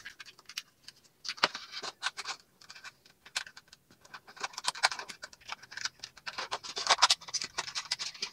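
Cardboard packaging and a small plastic toy being handled: scratching, rustling and light clicks as a toy buggy is worked free of its card insert.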